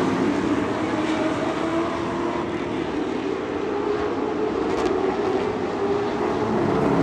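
An engine running at a steady speed.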